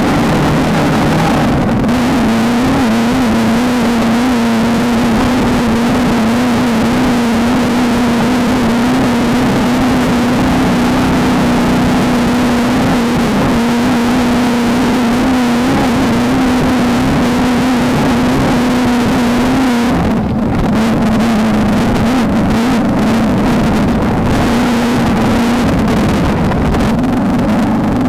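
Off-road race car engine running hard at a steady pitch. About twenty seconds in it briefly dips, and it then continues with scattered knocks and rattles over it.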